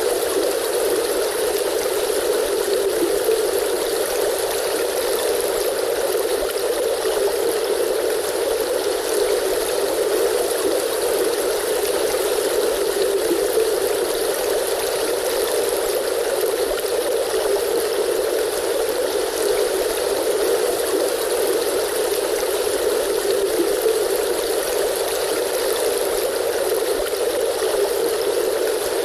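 River stream flowing steadily, an even rushing of water with no breaks.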